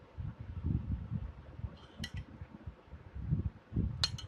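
A metal spoon clinking against glass: a light clink about two seconds in, then two sharp clinks near the end, under a low, uneven rumble of handling noise.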